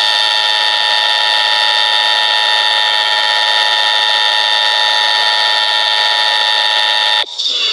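Emergency Alert System attention signal: a loud, steady two-tone alarm (853 and 960 Hz together) held unchanged for about seven seconds, then cut off suddenly near the end.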